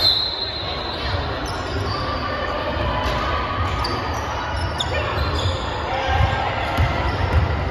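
Basketball game sounds on a hardwood gym floor: short, high sneaker squeaks, one right at the start and a few more scattered through, with a ball bouncing. Under it runs a steady din of voices echoing in a large gym hall.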